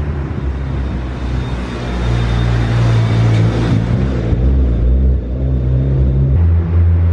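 Turbocharged Mitsubishi 4G63 inline-four of a 500 hp Eagle Talon running under throttle. Its sound builds for a couple of seconds, falls back about four seconds in, and its note changes again near the end.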